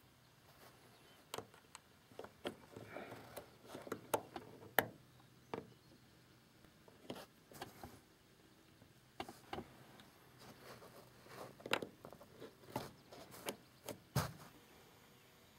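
Faint, irregular clicks and taps of plastic and metal as an LED festoon bulb is handled and pressed into the spring clips of a car dome light housing. The sharpest click comes near the end.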